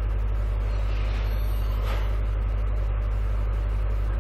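A steady low hum, with a brief rush of hissing noise that swells and fades about two seconds in.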